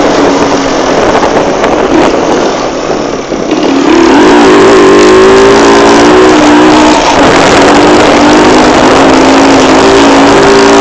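Motorcycle engine running while riding, with wind rushing over the microphone. About four seconds in the engine note comes up loud, dips and rises briefly, then holds fairly steady.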